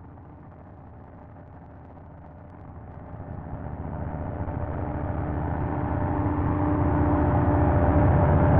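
Steady drone of gas-field machinery, a low rumble with a faint hum, muffled at first and then swelling louder and brighter from about three seconds in.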